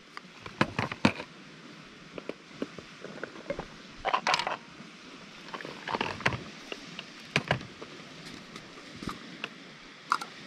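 Irregular clicks and knocks of fishing tackle being handled, such as plastic bait boxes and gear being moved about.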